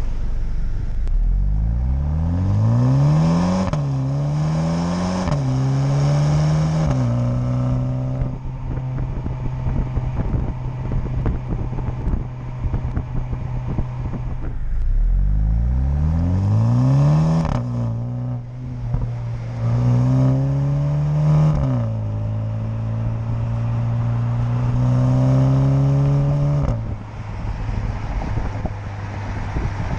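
2020 MINI JCW Countryman's turbocharged 2.0-litre four-cylinder engine and exhaust under hard acceleration, twice. Each time the note climbs steeply, drops at an upshift, climbs again, drops at a second upshift and pulls on through the next gear. Between the two pulls and near the end there is wind buffeting and road noise.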